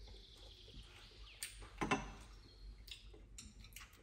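Wooden chopsticks lightly tapping and clinking against a ceramic bowl and saucer: a few scattered light clicks, with a slightly heavier knock about two seconds in.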